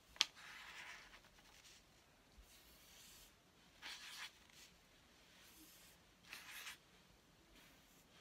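Felt-tip markers drawing on paper, heard faintly as a few short scratchy strokes, with a sharp tap at the very start.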